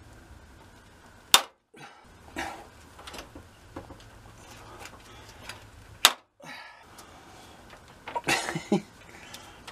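Hand pop rivet gun setting rivets through sheet steel: two sharp snaps about five seconds apart, each the rivet's mandrel breaking off as the rivet is fully set, with softer clicks of the handles being worked in between. Near the end comes a short burst of rattling handling noise.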